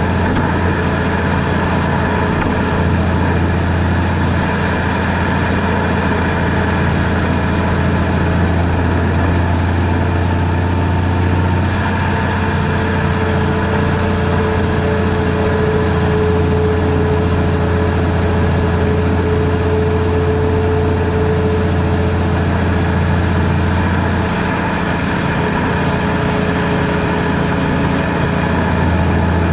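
Car engine and road noise heard inside the cabin while driving, a steady low hum.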